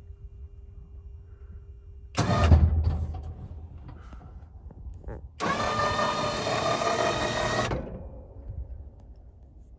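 Electric plow winch motor running steadily for about two seconds, working the lift of the KFI plow blade. About two seconds in there is a loud, heavy burst of noise that fades over a second or so.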